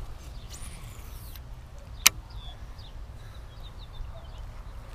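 Wind rumbling steadily on the microphone, with one sharp click about two seconds in and a few faint high chirps.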